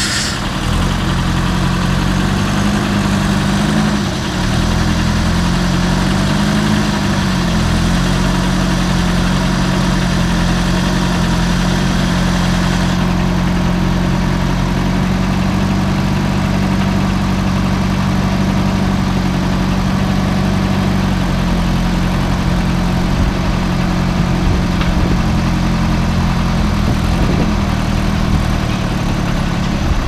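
Diesel engine of a Clark 667 wheel skidder running steadily, its pitch dipping and recovering twice early on as the load on it changes.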